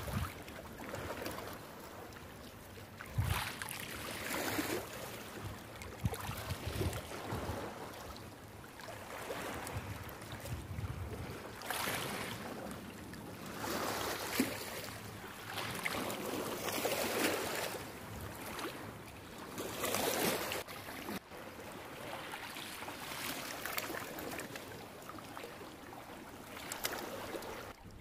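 Small sea waves washing onto the shore, swelling and falling every few seconds.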